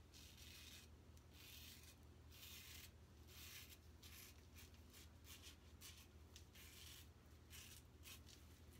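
Fatip Piccolo open-comb safety razor scraping through lathered stubble in a quick, irregular run of short, faint strokes during a cleanup pass.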